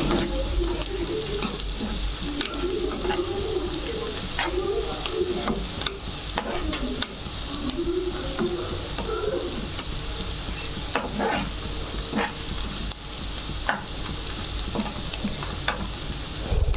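Chopped onions with green chillies and curry leaves sizzling in hot oil in a frying pan while a spatula stirs them, with scattered clicks and scrapes of the spatula against the pan. The onions are being sautéed until their raw smell cooks off.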